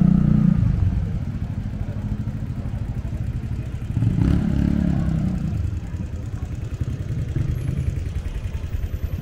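A motorcycle engine running close by, its low pulsing steady throughout and swelling louder about four seconds in.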